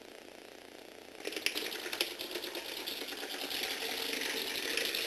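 Motorised Lego Technic car with hexagonal plastic wheels running across a wooden floor: a rapid, dense clatter of the wheels' flat sides striking the floor over the whir of its motor and gears. It starts about a second in, with a couple of louder knocks at first.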